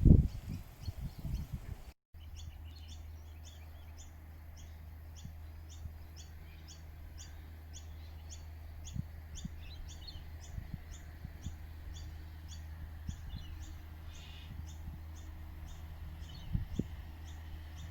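A bird repeating a short high call note evenly, about two to three times a second, over a steady low hum. In the first two seconds, before the call starts, there are irregular low thumps.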